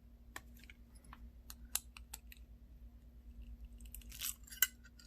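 Small clicks and scrapes of plastic phone parts being pried at and handled, with a scratchy patch a little after four seconds and a sharper click just after it. A faint steady hum runs underneath.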